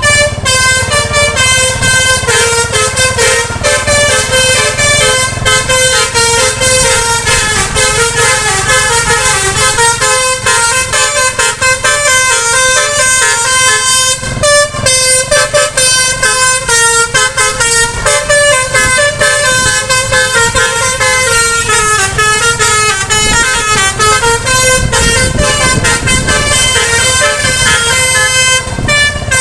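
Indonesian bus 'basuri' musical horn playing a tune: a quick, unbroken run of stepping horn notes.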